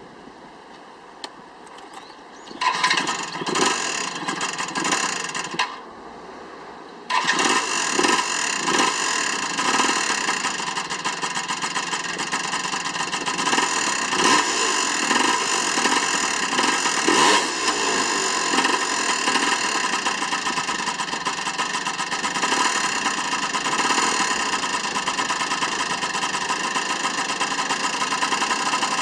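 Small motorcycle engine with a Daytona 55 mm bore-up kit starting about three seconds in, running briefly and dropping away, then starting again about seven seconds in and running with some throttle blips before settling to a steady run. It carries an abnormal noise that the owner puts down to a defective bore-up kit.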